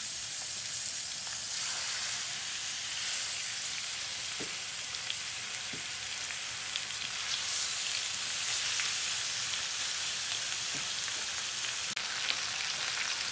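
Chicken breasts sizzling steadily as they sear in hot olive oil in a frying pan, with a few faint crackles. This is the sizzle of a properly hot pan browning the meat.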